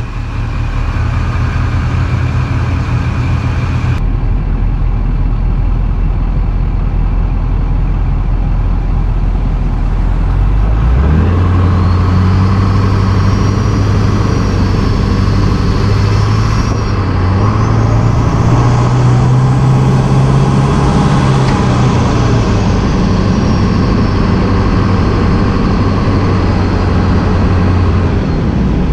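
LB7 Duramax 6.6 L V8 turbo-diesel idling, then held at raised revs from about ten seconds in. The turbo's high whistle rises in pitch, peaks, and glides back down as the revs fall near the end. The turbo is a rebuilt, polished stock unit with an 11-blade billet compressor wheel breathing through a cold air intake.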